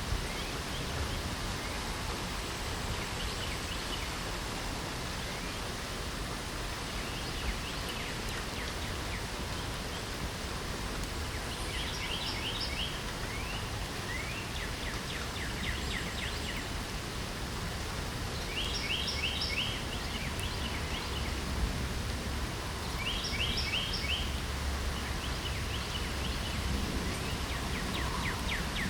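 Steady rain hiss with songbirds singing over it: short phrases of quick, high repeated notes every few seconds, coming more often and louder in the second half.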